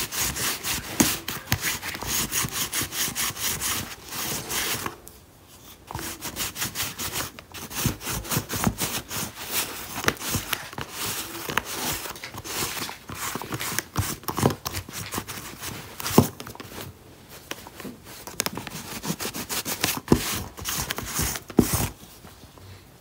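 Adhesive lint roller rolled quickly back and forth over black denim jeans: a rapid crackling rub of many small clicks, with a brief pause about five seconds in. It stops shortly before the end.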